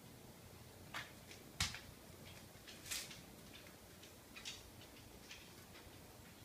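Faint scattered clicks and light rustles, as of small objects being handled. The loudest is a single sharp knock about a second and a half in.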